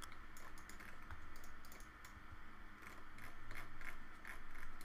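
Computer keyboard keys tapped a few at a time: soft, scattered clicks over a faint low hum.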